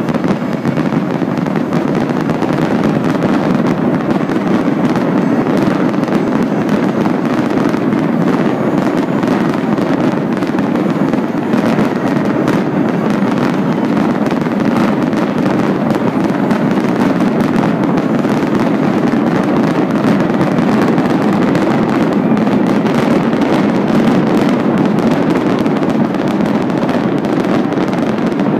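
Fireworks going off in a dense, continuous barrage, the bangs and crackles so close together that they merge into one steady rumble with no pauses.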